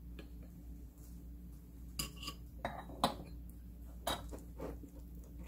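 A wooden spatula and a metal spoon stirring thick gochujang sauce in a small ceramic bowl. Scraping, with a run of knocks and clinks against the bowl starting about two seconds in.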